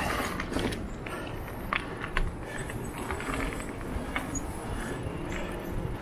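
Mountain bike rolling over a dirt singletrack: a steady low rumble of tyres and wind, with sharp rattles and knocks from the bike over bumps, two of them standing out about two seconds in.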